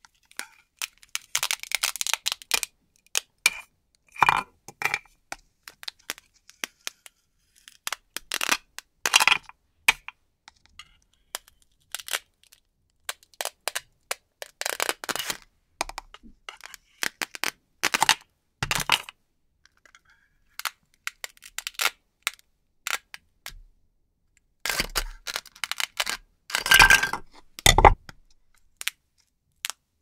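Hook-and-loop (Velcro) tearing apart again and again as a knife cuts plastic toy fruits and vegetables free of a Velcro disc. The rasps come in irregular bursts, some brief and some about a second long, with short clicks between them.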